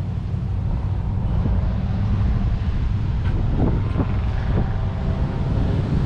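Wind buffeting the microphone as a steady, fluttering low rumble.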